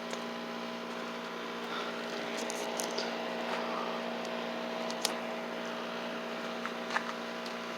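A steady mechanical hum at one constant pitch over a faint background hiss, with a few faint clicks.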